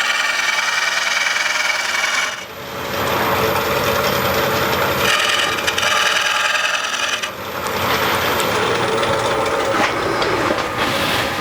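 Turning tool cutting a green-wood bowl blank spinning on a wood lathe, a steady shaving and scraping noise as the bowl is roughed out. The cut eases off briefly about two and a half seconds in and again about seven and a half seconds in, as between passes.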